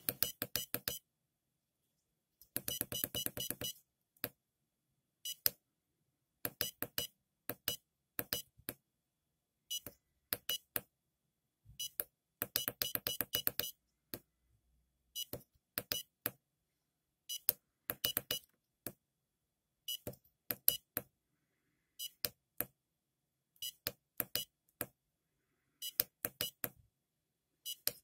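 Short sharp clicks from small tactile push buttons being pressed to step through a menu. They come one at a time and in quick runs of several presses, with silence between.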